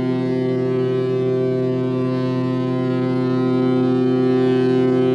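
Ship's horn of the passenger liner KM Tidar sounding one long, steady blast, a low blare of several tones together.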